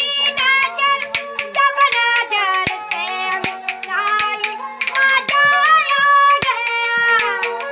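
A boy singing a loud, high folk melody to a bowed folk fiddle, which holds a steady drone beneath the voice, with sharp clicks of hand-held clappers keeping the rhythm.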